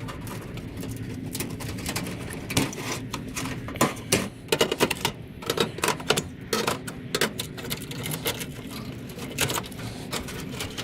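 Small aluminum refrigerant tubing being cut off the back of an appliance: many irregular sharp metallic clicks and knocks over a steady low hum.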